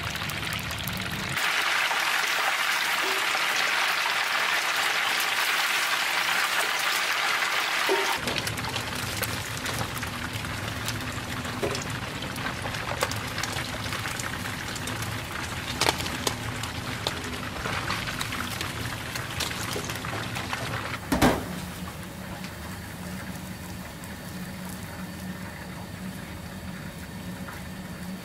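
Flatfish deep-frying in a wide pan of hot oil, the oil sizzling and bubbling with a steady hiss that is louder in the first stretch. A few sharp clicks and knocks of metal tongs against the pan, the loudest about three quarters of the way through.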